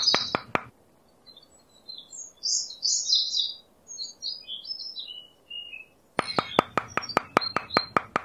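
Quick light taps of a small hammer driving a nail into the top of a thin wooden stick, about five a second, stopping under a second in. A small bird chirps a run of short high notes, then the hammer tapping starts again about six seconds in.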